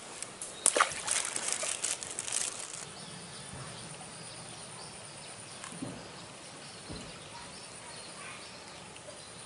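Water splashing and sloshing at the pond's edge for about two seconds, starting a second in, then quiet outdoor ambience with a faint, steady high-pitched hum.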